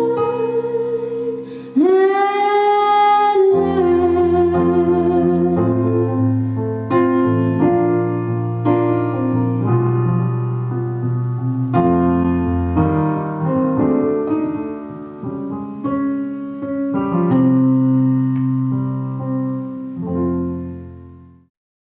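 A woman's singing voice holds a long note, slides up to a higher held note about two seconds in, then stops. Keyboard chords, electric-piano-like, carry on alone and fade out to silence near the end, like the close of a song.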